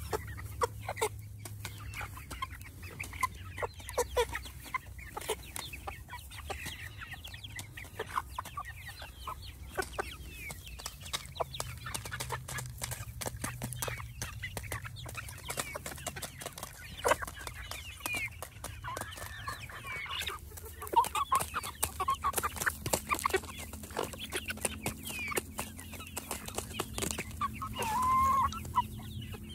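A flock of hens clucking softly while pecking feed pellets from a small plastic feeder, with many sharp taps of beaks on the pellets and plastic. A louder cluck comes near the end.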